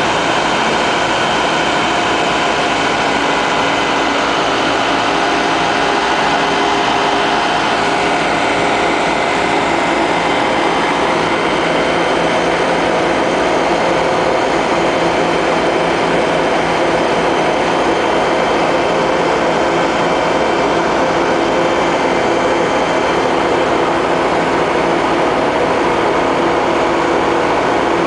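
Truck-mounted oil well workover rig's engine running steadily at a constant speed, a loud, even mechanical drone with several held tones, driving the pump that circulates fluid through the well.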